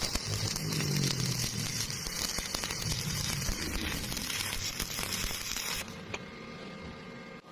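Welding arc crackling and sizzling steadily for about six seconds, then cutting off suddenly.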